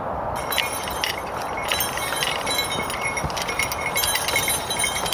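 Metal harness chains on a ploughing horse jingling and clinking, starting about half a second in and going on almost without a break, over a steady rushing noise.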